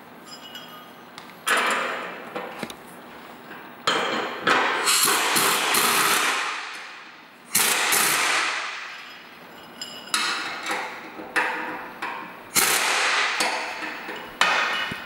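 Pneumatic wrench on an air hose running in several short bursts, each starting sharply and running down over a second or so, as it drives the bolts that hold a skid shoe bracket to a steel snow plow blade.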